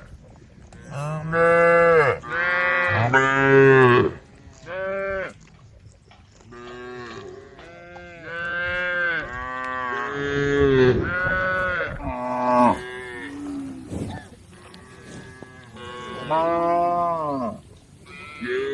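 Several cows mooing again and again, the calls overlapping at different pitches, each rising and falling over a second or so: cows calling to the herd.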